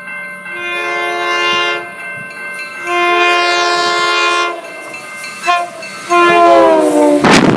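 Train horn sounding a multi-note chord in four blasts, long, long, short, long, the standard grade-crossing signal; the last blast drops in pitch as the train passes. Near the end a loud rush of the train going by.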